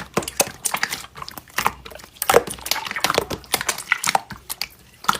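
Slime being pressed and squished by hand, making a quick irregular run of sticky clicks and small pops.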